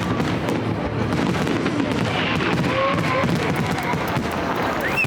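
Fireworks bursting overhead in a dense, continuous crackle with a low rumble underneath, with faint voices from the watching crowd.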